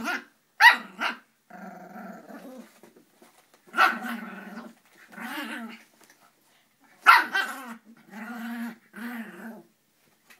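13-week-old Border Terrier puppy yapping and growling in play, in bouts: two quick yaps then a growl, a yap about four seconds in followed by growling, and another yap about seven seconds in followed by longer growling.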